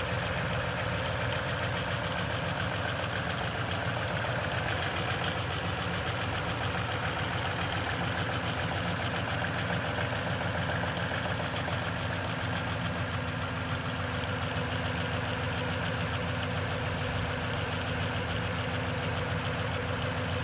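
2010 Toyota Tundra engine idling steadily with a fast, even rattle, the noise the owner puts down to the timing chain after a cold start at 165,000 miles.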